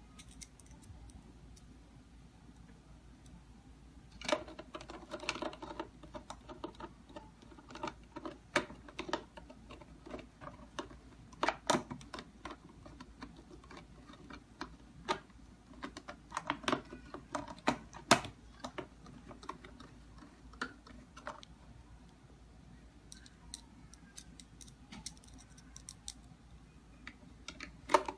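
Irregular clicks, taps and small knocks of a keypad door lock's back panel being handled and fitted back onto the door. The clicks come thickly for much of the stretch, then thin out near the end.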